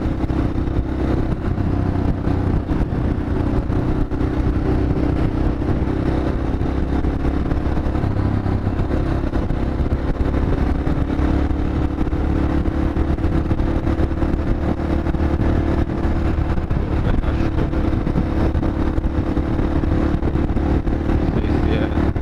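Yamaha XT 600E's air-cooled single-cylinder engine running steadily at cruising speed while riding, with a constant drone.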